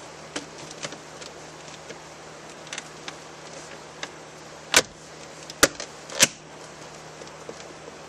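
Leather shift boot and its console trim being worked down around the shifter: light rustling and small clicks, then three loud sharp clacks about a second apart near the middle.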